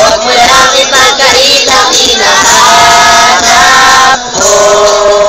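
A song: music with a group of voices singing, the voices holding long notes through the second half.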